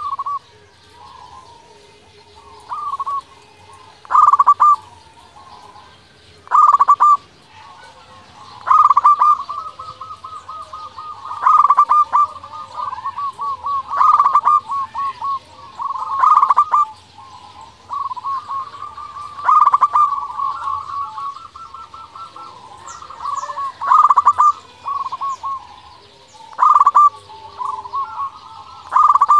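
Local-strain zebra dove (perkutut) in full song, repeating its rapid, trilled cooing phrase about a dozen times, one every two to three seconds.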